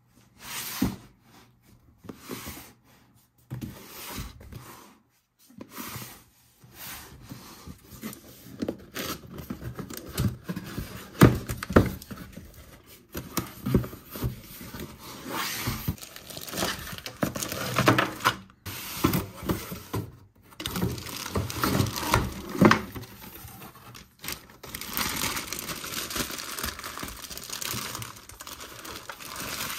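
A toy playset's cardboard box and plastic wrapping being opened and handled: irregular rustling, crinkling and tearing, with sharp clicks and knocks of the toy and box.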